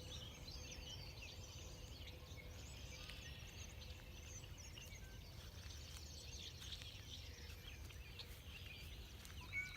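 Several small birds chirping and calling, many short high chirps overlapping, faint over a low steady background rumble.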